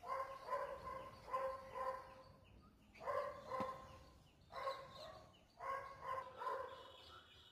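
A dog barking in four bouts of two to five barks each, with short pauses between the bouts.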